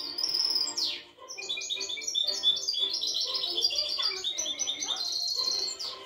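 Small caged songbird singing a fast, continuous song of rapid repeated chirping notes, broken briefly about a second in.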